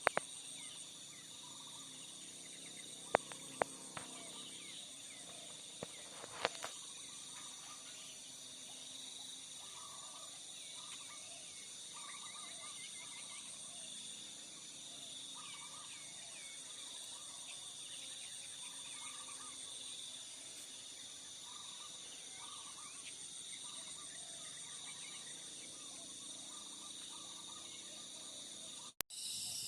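Steady high-pitched buzzing of insects with wild birds chirping over it, short calls repeating throughout. A few sharp clicks come in the first seven seconds, and the sound cuts out briefly near the end.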